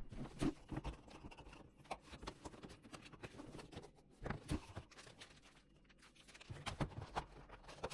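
Irregular clicks, knocks and scrapes of things being handled, a few sharper knocks standing out.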